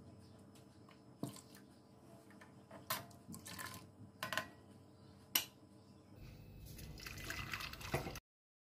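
Milky Kashmiri chai being stirred and ladled in a steel pan, the ladle knocking against the pan a few times. About six seconds in, the hot chai is poured from the pan through a strainer, a splashing pour that grows louder for about two seconds.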